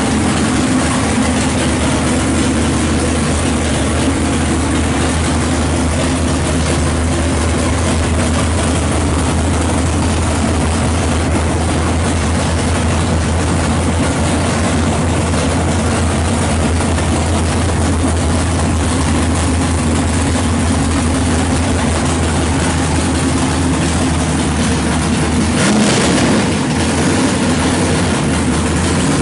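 The 427 V8 of a 1970 Chevy Nova drag car, topped with two four-barrel carburetors, idling steadily. There is a brief louder burst near the end.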